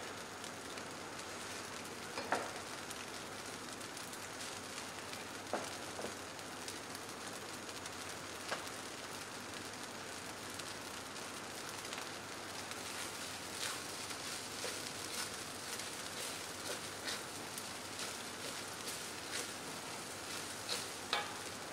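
Fried rice sizzling in a steel wok over a gas burner as it is heated through: a steady hiss with scattered pops and crackles. Near the end a wooden spatula stirs and scrapes the rice around the wok.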